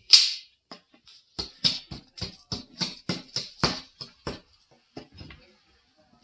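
Small plastic digging tools scraping and chipping at plaster excavation blocks, in quick strokes about three a second that thin out about four seconds in.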